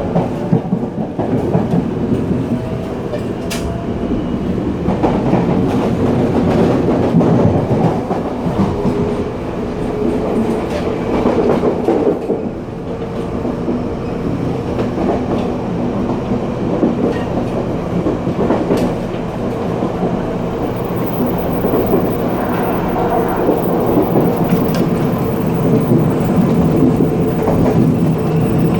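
Continuous rumble and rattle at the gangway between two cars of a Puyuma tilting express train (TEMU2000 electric multiple unit) running at speed: wheels clattering on the track and the connection rattling, with a few sharp clicks.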